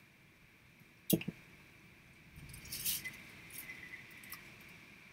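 A vape mod knocks twice as it is picked up, about a second in, then a soft hiss with light crackling as it is drawn on, with a thin steady whistle partway through.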